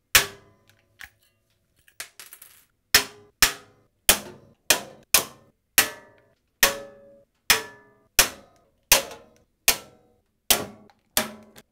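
Hand pop-rivet tool setting rivets into a steel PC case: a series of sharp cracks, about two a second, each one ringing briefly through the case panels.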